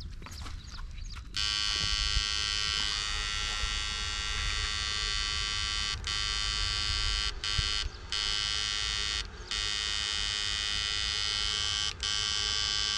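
Battery-powered electrofishing backpack unit buzzing steadily while its current is switched into the water through the pole. The buzz starts about a second in and cuts out briefly five times.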